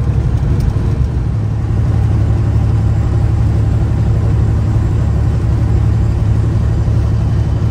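Steady low drone of engine and road noise inside a vehicle's cab cruising at highway speed.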